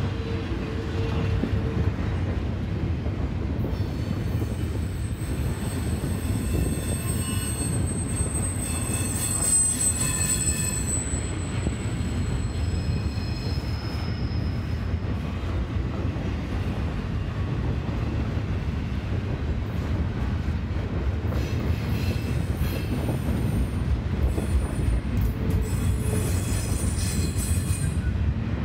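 Double-stack intermodal container train rolling past: a steady rumble of wheels on rail, with high-pitched wheel squeal from about four to eleven seconds in and again near the end.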